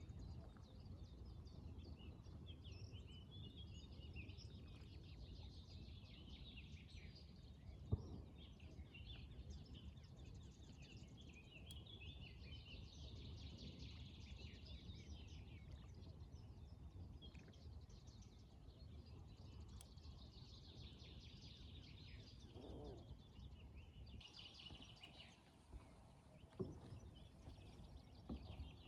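Faint morning birdsong: several small birds chirping and trilling over a low, steady rumble of outdoor background noise. A single sharp knock comes about eight seconds in.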